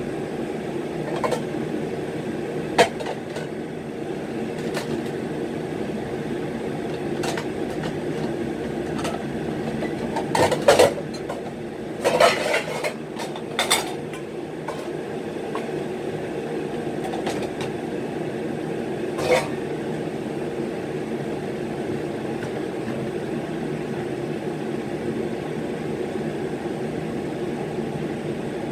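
Clinks and clatters of dishes and kitchen utensils being handled, a few single knocks and a busier cluster between about ten and fourteen seconds in, over a steady low mechanical hum.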